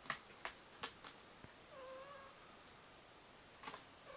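A cat gives one short, faint meow about two seconds in, among a few light clicks and taps.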